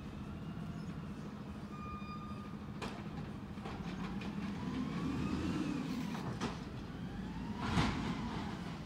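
Peterbilt 320 garbage truck with an Amrep body running at the curb. Its hydraulics whine, rising and falling as the packer equipment works, and a few metallic clanks come through, the loudest near the end.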